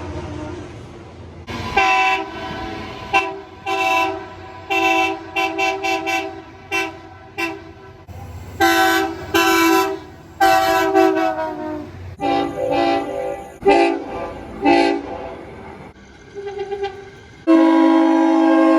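Locomotive air horns sounding a run of long blasts and short toots, each a steady multi-note chord, with a low engine rumble underneath for the first part. The chord changes partway through, as a different horn takes over, and a loud long blast begins near the end.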